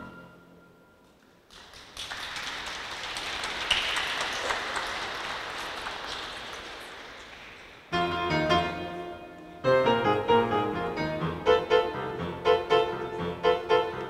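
Audience applause for about six seconds, slowly fading, then an upright piano starts an introduction about eight seconds in, with fuller, rhythmic chords from about ten seconds in.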